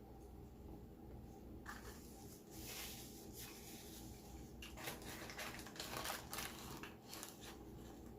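Close-up chewing of a fried chicken sandwich: faint, irregular crunching and squishing mouth sounds, busier in the second half.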